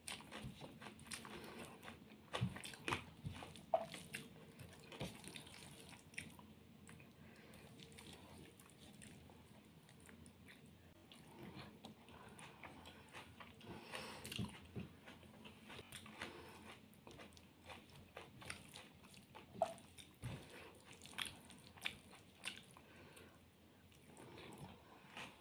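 Faint close-up eating sounds: a person chewing and biting mouthfuls of rice eaten by hand, with scattered small crunches and wet clicks of the mouth.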